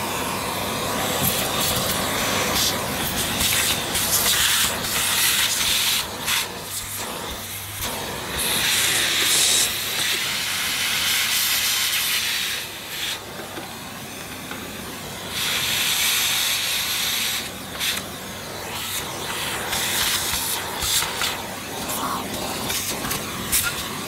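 A second vacuum cleaner sucking clogged dirt out of a vintage Electrolux 502 upright. Its airflow hisses in loud stretches that swell and drop several times over a steady motor hum.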